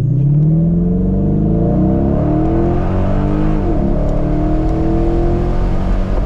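Tuned Dodge Challenger R/T's V8 heard from inside the cabin, accelerating with its note rising, then dropping briefly about three and a half seconds in as it shifts up and climbing again.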